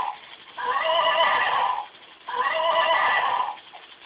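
Plush rocking horse's built-in electronic sound unit playing recorded horse neighing through its small speaker, the same phrase looping about every 1.7 seconds and stopping near the end.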